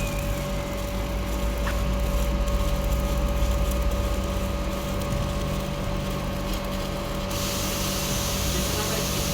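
Stick (SMAW) welding arc sizzling and crackling steadily on a pipe joint, over a steady electrical hum. The hiss turns brighter and sharper abruptly about seven seconds in.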